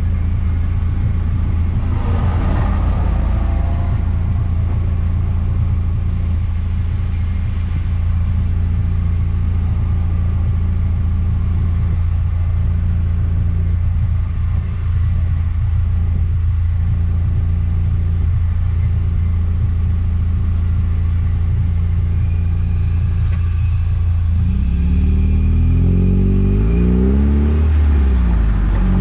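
Eunos Roadster's four-cylinder engine running under a steady low drone with road noise while the car drives; near the end the engine note begins rising and falling as the revs change.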